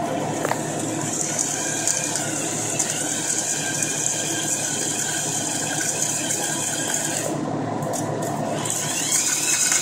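KitchenAid stand mixer running steadily with a gear whine as it churns ice cream base with powdered dry ice, over a high hiss that stops briefly a little past seven seconds in and then returns.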